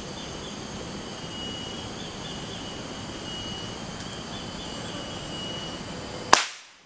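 Steady high-pitched insect chirring with pulsing tones, then a single sharp gunshot about six seconds in.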